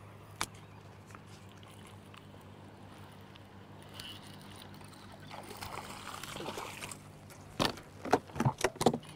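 Water lapping at a fishing boat's hull over a low steady hum, then a quick run of about six sharp knocks and splashes in the last second and a half, the loudest sounds here.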